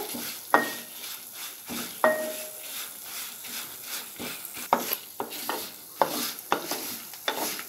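Whole spices (coriander seeds, dried red chillies and lentils) sizzling in a little oil in a metal pan while a spatula stirs and scrapes through them. Several clicks and knocks of the spatula on the pan, two of them in the first two seconds ringing briefly. The spices are nearly roasted.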